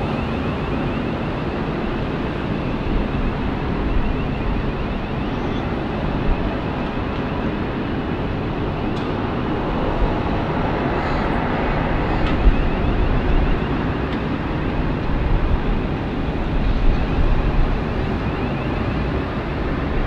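Jet airliner engines at takeoff thrust: a loud, steady rush of engine noise with no break.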